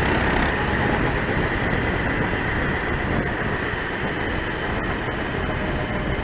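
Racing kart engine running at low revs, picked up by the kart's onboard camera, under a steady rushing noise.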